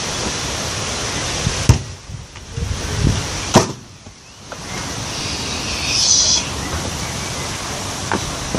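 Wind buffeting the microphone, with two sharp thuds about two seconds apart from a football being struck during shooting practice.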